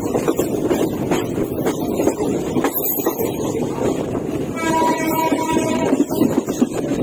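A Mumbai suburban EMU local train running slowly, heard from its open doorway: a steady rumble of wheels on rail with scattered clicks over the track joints. A train horn sounds for about a second, roughly four and a half seconds in.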